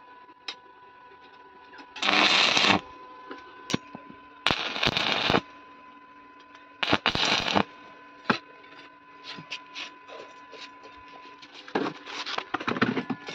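Stick (arc) welding on a mild-steel angle-iron frame: four short crackling bursts of about a second each as the electrode strikes and lays tack welds at the corners, with scattered clicks between them and a steady hum underneath.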